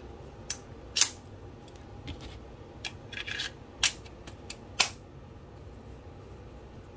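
Sharp metallic clicks and clacks of a 1911 pistol's steel parts being worked by hand, about ten in all, the loudest about a second in, just before four seconds and just before five.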